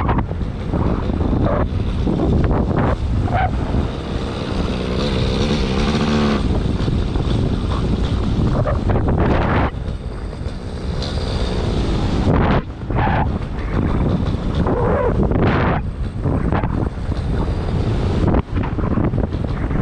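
Wind buffeting the microphone in flight, with a paramotor's engine and propeller droning underneath. The drone comes through as a steady pitched tone for a couple of seconds about a third of the way in.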